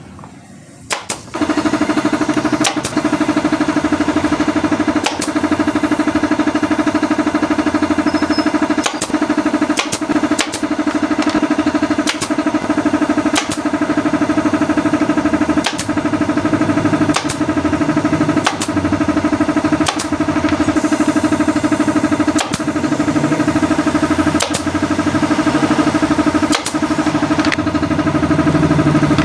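Upholstery staple gun (tacker) firing staples into a bicycle saddle cover, a sharp click roughly every second, over a steady motor hum that starts about a second in.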